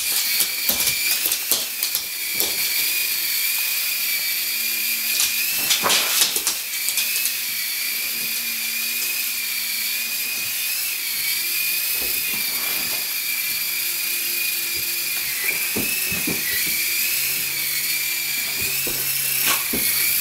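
E-flite Blade mCX coaxial micro RC helicopter flying: a steady high-pitched whine from its small electric motors and counter-rotating rotors, wavering slightly in pitch as the throttle changes. A few sharp clicks come near the start and about six seconds in.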